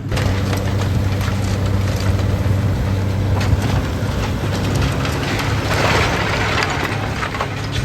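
Ford Sierra Cosworth's turbocharged four-cylinder engine idling steadily, with a brief rise of hiss about six seconds in.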